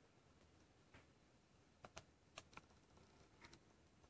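Faint, scattered small clicks and taps of a star (Torx) screwdriver working the screws out of an HTC Desire Eye's frame, about seven light ticks spread irregularly over a few seconds.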